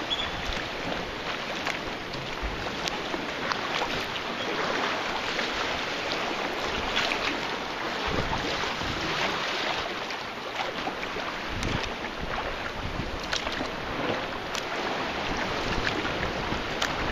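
Sea water lapping and splashing around a kayak's hull as it is paddled, with wind gusting on the microphone, stronger in the second half.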